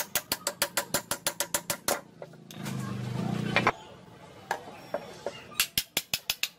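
Small hammer tapping quickly on the steel parts of old lopping shears, about seven sharp metallic taps a second. The taps pause partway through, then come again in scattered strikes and a short quick run near the end.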